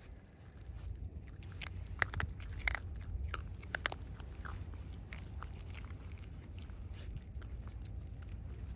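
Raccoon dogs crunching dry kibble pellets off pavement: irregular sharp crunches and bites, a few a second, over a steady low rumble.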